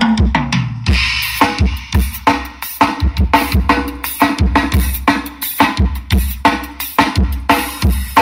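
Drum-heavy music played loud through a paredão car sound system: a deep kick drum on a steady beat with snare hits, played as the mid-range test.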